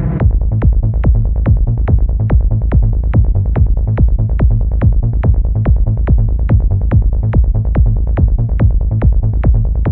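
Electronic dance music with a steady beat, a little over two beats a second, over heavy bass.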